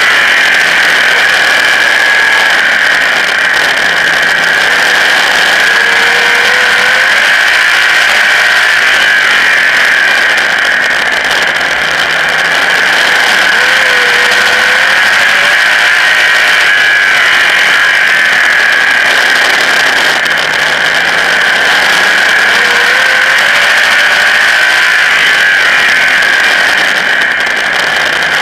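Modified race car's engine at racing speed, recorded onboard: loud and continuous, its pitch climbing again about every eight seconds as the car accelerates.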